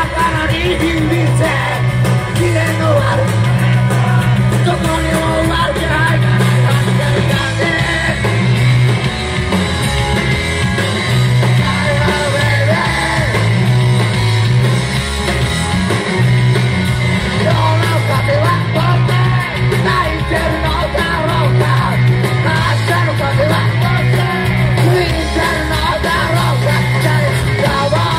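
Live rock band playing: a singer shouting the vocals over electric guitar and drums, with a heavy bass line underneath.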